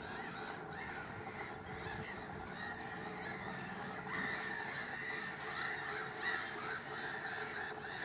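A colony of black-headed gulls calling, with many short calls overlapping in a continuous chorus.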